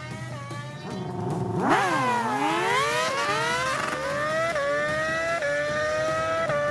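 Motorcycle engine accelerating hard through the gears: its pitch climbs, drops at each upshift and climbs again, several times over. There is a sharp swoop down and back up in pitch about two seconds in.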